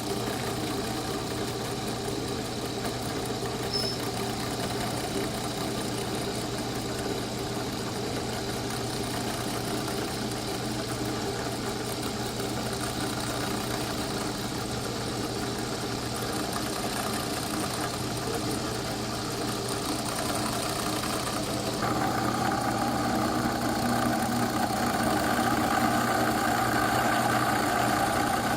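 Oliver 299 thickness planer running steadily while its built-in blade-sharpening attachment works on the knives: a continuous machine hum. The sound gets louder and fuller about 22 seconds in.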